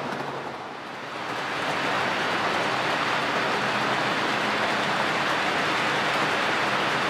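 HO-scale model train running on the track, a steady rushing whir of wheels and motor with no engine-like pitch. It grows louder about a second and a half in and then holds steady.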